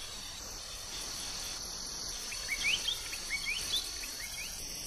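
Night insect chorus: crickets give a steady high trill. About halfway through comes a run of short rising chirps.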